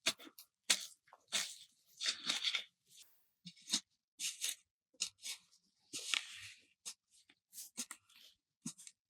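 Rapid, irregular series of short crunching and tearing noises: plant stems and soil being handled during a sweet potato harvest.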